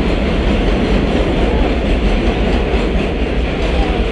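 Elevated 7 subway train running along the steel el structure above Roosevelt Avenue, a loud, steady noise with heavy low rumble.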